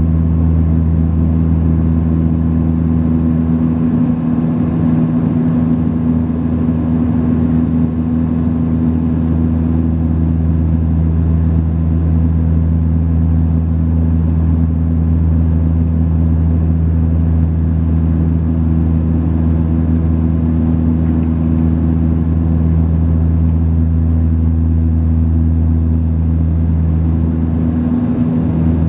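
Steady cabin drone of a Saab 340B's twin turboprop engines and propellers: a constant low hum built from a few evenly spaced tones over a rushing background noise.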